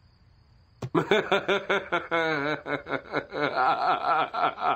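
Near silence for under a second, then a click and prolonged laughter, pulsing in quick repeated bursts.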